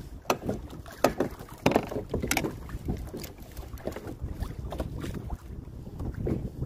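Wind on the microphone and a steady low rumble of water around a fishing kayak, with sharp, irregular knocks and clicks as a freshly caught fish and the fishing gear are handled on the kayak.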